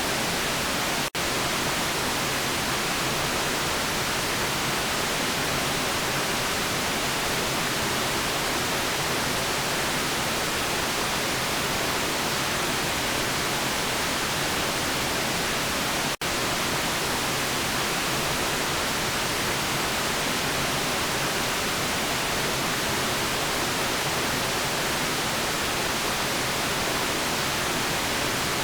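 Steady white noise: an even, unchanging hiss. It cuts out for an instant twice, about a second in and again about sixteen seconds in.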